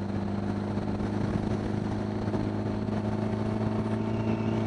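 1975 Honda Gold Wing GL1000's flat-four engine running at a steady cruise, heard from the rider's helmet microphone with wind rush over it.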